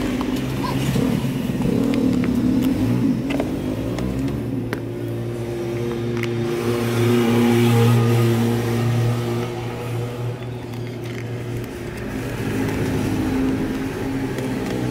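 A motor vehicle engine running steadily at low speed, getting louder about halfway through and then easing off, with a few faint clicks from hand-tool work.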